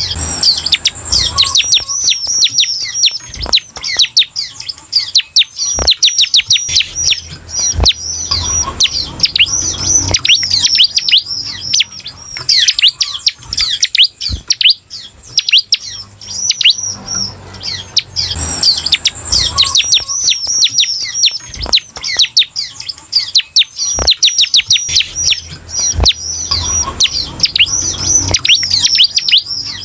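Bar-winged prinia (ciblek) singing: a fast, unbroken series of high, down-sweeping chirps, sung as a lure song to set other ciblek singing.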